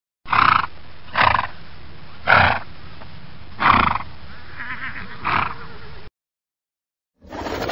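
Horse neighing in five short calls spaced about a second apart, over a steady hiss. The calls cut off at about six seconds, and another brief call begins near the end.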